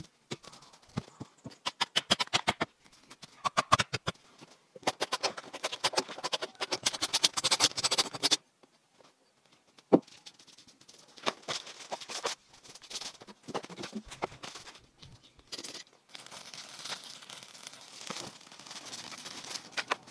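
Footsteps and handling of wood among dry leaves, twigs and grass: crunching, rustling and snapping, with a sharp knock about ten seconds in and an even crackling over the last few seconds.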